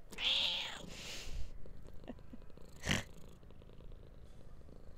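Domestic cat purring steadily close by. Over it, a spoon scrapes topping out of a plastic jug near the start, and about three seconds in there is a single sharp clink.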